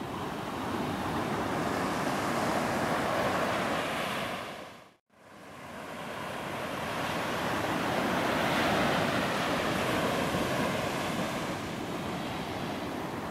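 Sea surf washing on a beach, a steady rush that swells and eases. About five seconds in the sound fades out to almost nothing and then fades back in.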